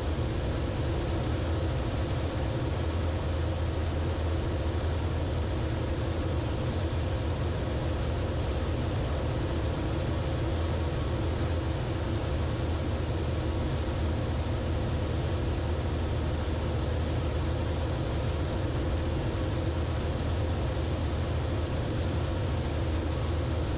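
Steady drone of a light aircraft's engine and propeller in level flight, heard inside the cockpit.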